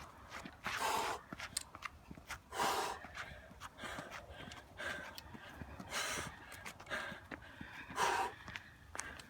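A hiker breathing hard while climbing uphill, pushing out loud exhales through the mouth, the four strongest about two seconds apart, with light footstep ticks between.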